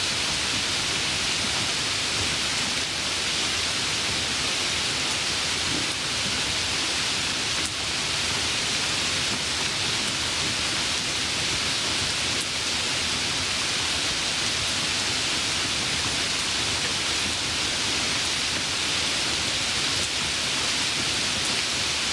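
Light rain falling: a steady, even hiss of many small drops, with faint scattered ticks.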